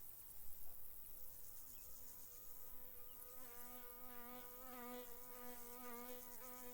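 A flying insect buzzing, its low steady hum starting a couple of seconds in, growing fuller about halfway and wavering slightly in pitch. Crickets chirp high and fast underneath.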